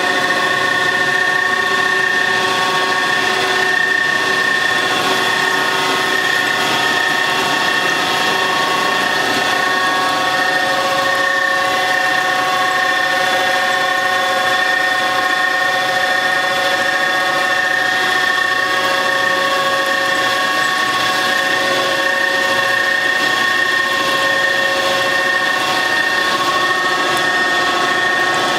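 Grinder running steadily, a loud mechanical whine of several steady tones over a grinding rush that holds unchanged throughout.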